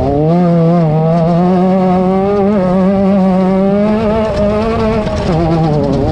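Off-road race car's engine running hard at high revs, its pitch holding steady with small wavers, then dropping briefly about five seconds in before climbing again.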